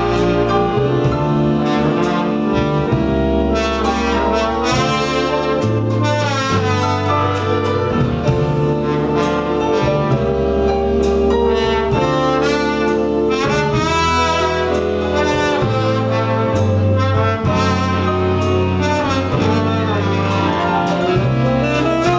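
Jazz band playing an instrumental passage: a saxophone carries the melody over keyboard chords and low bass notes that change every couple of seconds.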